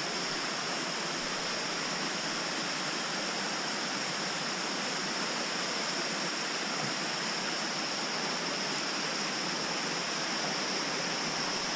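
Water of a small creek and waterfall rushing steadily, an even wash with a steady high-pitched hiss on top.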